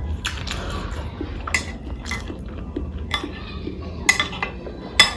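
Dishes clinking and tapping while eating: several sharp clicks about a second apart, the loudest near the end, over a low steady hum.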